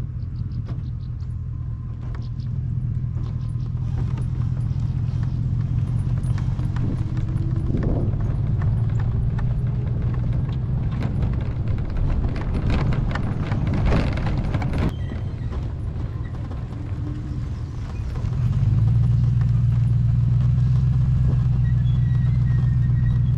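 A trailer carrying a kayak, towed behind a pickup truck: a steady low road rumble with a stretch of rattling and clattering from the trailer and the gear on it, then a louder, steadier rumble near the end as it picks up speed.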